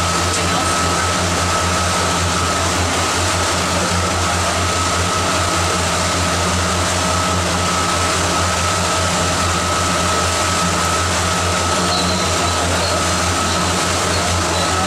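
Sightseeing riverboat's engine running at a steady cruise: a low hum with a thin high whine over a steady rushing noise.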